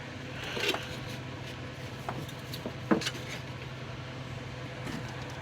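Plastic model-kit parts on their sprues being handled, giving a few light clicks and knocks, the loudest about a second in and about three seconds in, over a steady low hum of room air conditioning.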